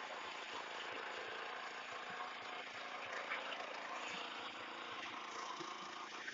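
Small petrol engine of a walk-behind rotary cultivator running steadily as its tines churn through soil.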